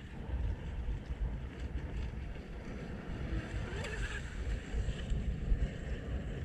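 Wind buffeting the microphone, with a radio-controlled speedboat's motor whine and hull spray passing close by about four seconds in.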